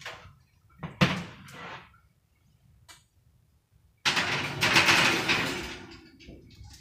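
A metal clank about a second in as the wire oven rack is pulled out, then a glass baking dish is set on the rack and the rack is slid back into the oven: a loud scraping rattle of about two seconds that fades away.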